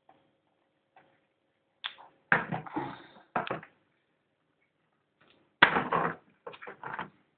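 Sharp knocks and clicks of a metal steelbook case and its plastic disc trays being handled and opened: a cluster of knocks around two to three seconds in, then a louder knock followed by a short run of clicks near the end.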